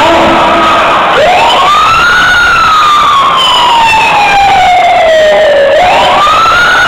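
Siren sound effect in a hip-hop dance track played loud through a stage sound system: one wail that rises about a second in, slides slowly down over several seconds, then rises again near the end.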